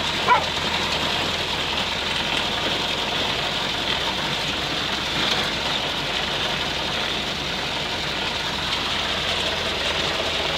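1980 UAZ off-roader's engine running steadily, heard from inside the cab as an even drone with a hiss. A short high squeak about a third of a second in.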